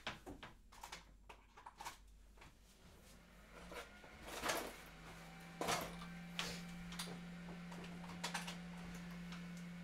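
A few clicks and knocks, then a 3D printer switched on: a steady low hum from it starts about five seconds in and keeps running.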